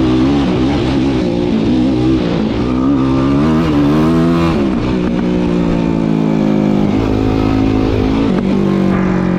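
Yamaha YFZ450R SE sport ATV's single-cylinder four-stroke engine running under way, its pitch wavering with the throttle. It climbs from about three seconds in, drops suddenly near five seconds, and drops again twice in the last few seconds.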